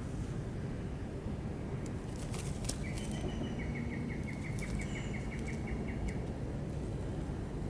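A bird calling in a quick, even run of short chirps, about six a second, starting about three seconds in and lasting about three seconds. Scissors snip through plastic bird netting with a few sharp clicks, over a steady low rumble.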